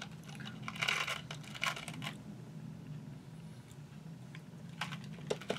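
Red Hots cinnamon candies rattling out of their small cardboard box into a palm: two short spells of clicking about one and two seconds in, then a few single clicks near the end.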